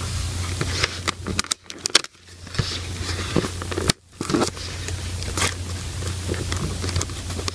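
Cardboard door of a chocolate advent calendar being pushed in and torn open by fingers: irregular crackling and scraping of card with a few sharp clicks.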